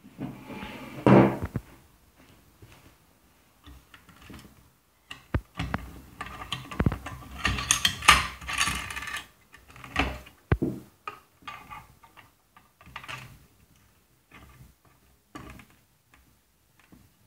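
Metal parts of a Soviet PT-1 primus stove handled by hand: irregular clicks, rattles and scrapes of the aluminium case and fittings, loudest about a second in and again around eight seconds in.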